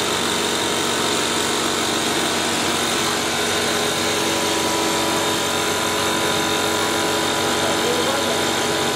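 Steady mechanical drone of workshop machinery running, several constant tones over an even noise, without breaks or changes.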